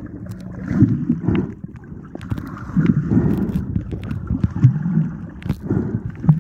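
Muffled water sloshing and rumbling heard through a phone held underwater, rising and falling in uneven surges about once a second, with scattered small clicks.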